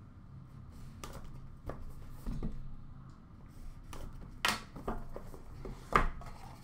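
Cardboard trading-card hobby box being handled and turned over, with light rustles and taps and two sharper knocks about four and a half and six seconds in as it is brought down onto the counter.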